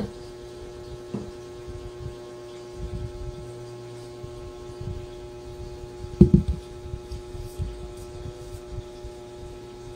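A steady low electrical hum, with light handling knocks from non-stick woks being moved about and one loud low thump about six seconds in.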